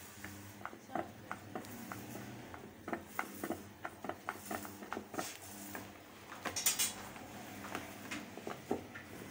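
Plastic push-down soap dispenser being pressed repeatedly by hand, its pump tray clicking and clacking about two or three times a second, with a brief louder hissing burst about six and a half seconds in.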